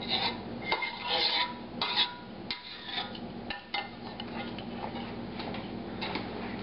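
Metal utensil scraping thick sauce out of a stainless steel pan, with repeated clinks and scrapes against the pan for the first few seconds, then quieter.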